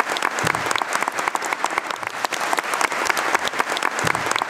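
A large audience applauding, with dense steady clapping from many hands.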